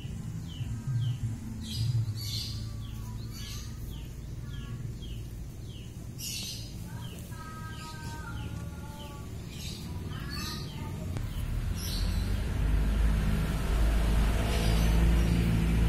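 Birds chirping over and over, short falling chirps a few times a second. A low rumble builds and grows louder over the last few seconds.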